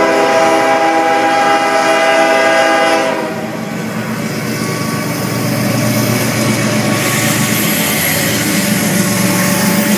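CSX diesel freight locomotive sounding its horn, one long blast of several tones together lasting about three seconds, then the locomotive's engine and wheels rumbling as it passes close by.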